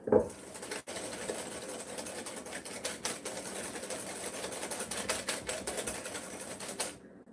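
Wire whisk beating a thin liquid pudding mixture in a glass mixing bowl: a fast, steady clatter of the wires tapping and scraping the glass, which stops suddenly just before the end.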